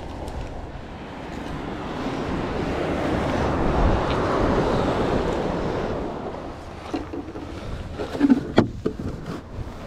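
Wind and surf noise on a beach, swelling for a few seconds in the middle of the clip. Near the end come several short knocks and clatters of a plastic box and lid being handled.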